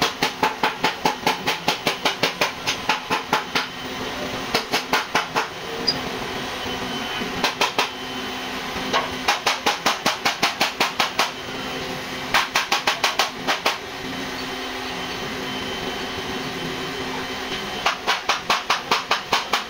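A hand hammer striking a car body's sheet metal in quick runs of blows, about five a second, with pauses between the runs, over a steady low hum.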